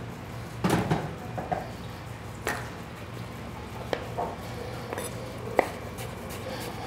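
Chef's knife dicing firm apples on a wooden cutting board: irregular sharp knocks of the blade on the board, with a short cluster of louder cuts about a second in and single strikes a second or more apart after that.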